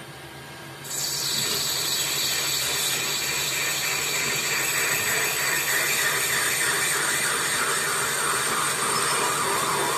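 Metal lathe turning a cast-iron brake disc: the cutting tool bites into the face about a second in, then a steady cutting noise runs over the lathe's spinning.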